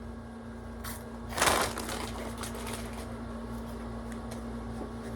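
A steady low hum, with a short burst of rustling noise about a second and a half in and a few faint clicks just before it.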